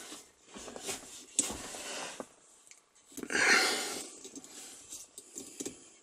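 Small clicks and rustling of hands working an Allen key into the set screws of a shift knob adapter on a car's gear lever, with a louder rush of noise lasting about a second just past the middle.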